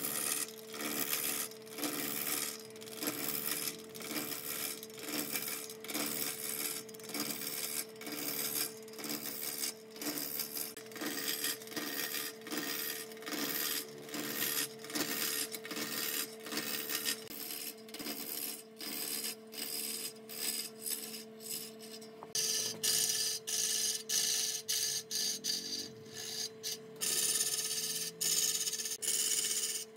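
Wood lathe running with a steady hum while a hand-held turning gouge cuts a spinning log, scraping in quick repeated strokes as shavings fly off. The cutting grows louder and harsher a little after two-thirds of the way through.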